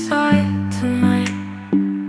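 Soft, slow instrumental music between sung lines: sustained low notes and chords, with a new note struck about every three-quarters of a second.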